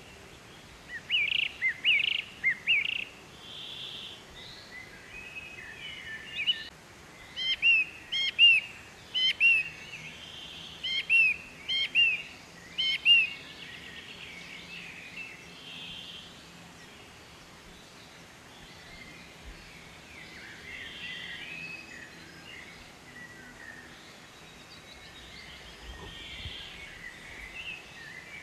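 Birdsong at dawn: loud, sharp, repeated chirps in quick runs during the first half, then softer chattering calls from other birds over a faint steady background.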